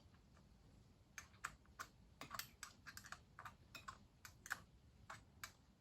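Faint, irregular light clicks, a few a second, as the motorcycle wheel's rim lock nut is run up its stud by hand or with a tool.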